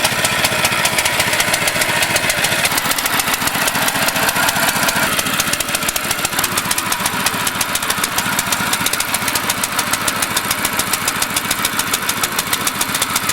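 A small engine running steadily with a rapid, even chugging beat.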